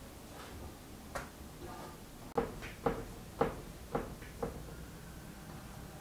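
Hands kneading a ball of bread dough on a floured wooden board, a soft knock with each push: one lighter knock about a second in, then five in a row about two a second.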